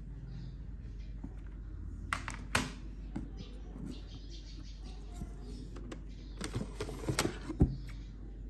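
Plastic CD jewel cases clicking and knocking as they are handled. There is a cluster of clicks about two seconds in and another near the end, the sharpest just before the end, over a low steady hum.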